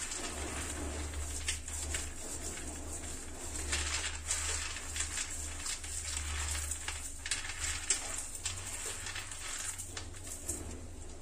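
Roasted peanuts rubbed between the palms and stirred in a steel plate to loosen their skins: a continuous dry rustling with many small clicks of nuts against the metal, over a low steady hum.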